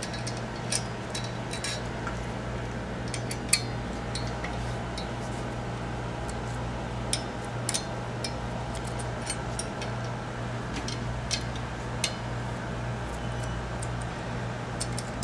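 Scattered light metallic clicks and clinks of a hex key working loose the screws on a cryocooler cold head's bellows flange, irregular, with one sharper click about three and a half seconds in. A steady low hum runs underneath.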